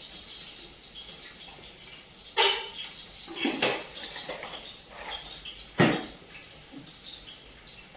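Kitchen cooking sounds: a steady watery hiss with a few clinks and knocks of utensils on pots, the loudest nearly six seconds in.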